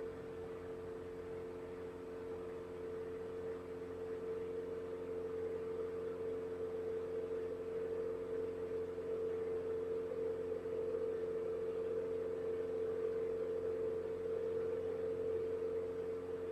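Diamond single-engine airplane's piston engine and propeller at takeoff power through the takeoff roll and climb-out, heard as a steady hum of several even tones that grows a little louder after the first few seconds.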